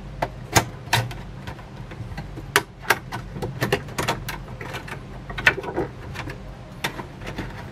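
Stiff clear plastic packaging handled and pried open by hand: irregular sharp clicks, taps and crinkles of the plastic, over a steady low hum.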